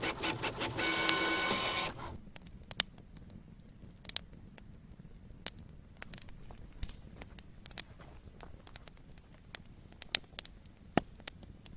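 A small machine whirs with steady tones for about two seconds, then stops, leaving faint, scattered clicks.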